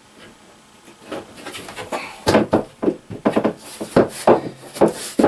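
Shower stall base knocking and scraping against the wooden subfloor boards as it is worked down into place, a quick, irregular run of bumps and thuds starting about a second in and growing busier over the last three seconds.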